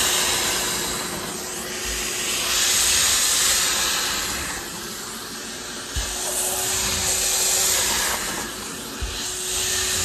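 Wet-and-dry vacuum cleaner running, its suction hissing through a spray-extraction upholstery nozzle drawn over a fabric car roof lining, swelling and fading with each stroke. Two soft knocks come about two thirds of the way in.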